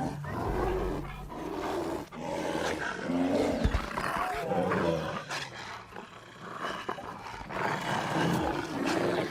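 A grizzly bear and a wolf pack growling and snarling at each other in a fight over a kill, with irregular rough calls and some higher yelping.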